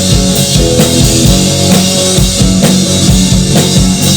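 Live band playing an instrumental bar between sung lines: a drum kit keeps a steady beat with bass drum and snare under held bass notes.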